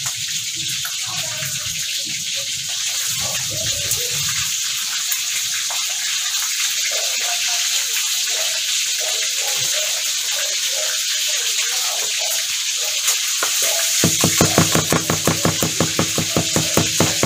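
A steady hiss throughout, then, a few seconds before the end, a kitchen knife chopping garlic cloves on a plastic cutting board in quick, even strokes of several a second.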